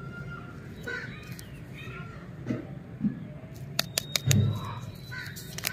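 Birds calling over and over in the background. About four seconds in there are a few sharp clicks and a soft knock as a wrapped lollipop is handled.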